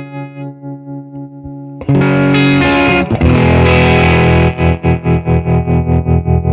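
Electric guitar played through a Mattoverse Solar Sound solar-powered distortion pedal. A distorted chord fades with a wavering level, a new loud distorted chord is struck about two seconds in, and from about four and a half seconds on it chops on and off about five or six times a second as a hand shades the pedal's solar panel.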